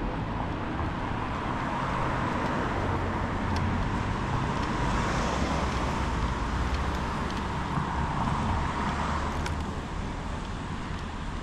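Steady road traffic noise on a residential street, a low rumble that swells a little in the middle as a vehicle goes by.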